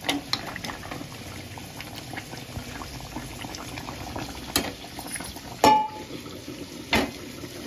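Chicken curry gravy bubbling at a steady boil in a pot, thickening as it cooks down. A few sharp metal clinks from the ladle and steel plate sound over it, one about two-thirds of the way through ringing briefly.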